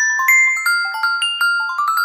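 A Google Pixel 9 ringtone playing through the phone's speaker: a quick melody of struck, bell-like mallet notes, about four or five a second, each ringing briefly, with no bass.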